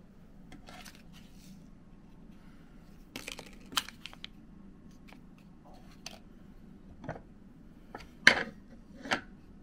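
White ceramic mug handled on its tray: scattered light clinks and taps, then two sharper knocks near the end as the mug is picked up and turned upright.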